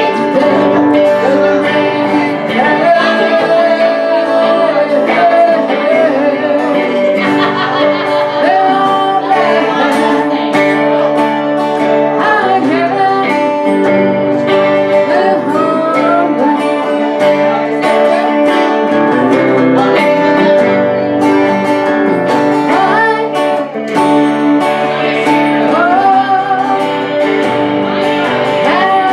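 Live band playing a blues-rock song: electric lead guitar over a strummed acoustic guitar, with a woman singing.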